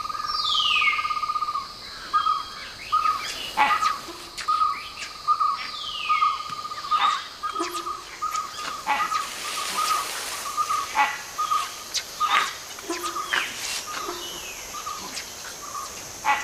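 Jungle birds calling in alarm at a king cobra: an uproar of sharp repeated chirps and several falling whistles, over a rapid trill that runs steadily for the first couple of seconds and then breaks into short pieces.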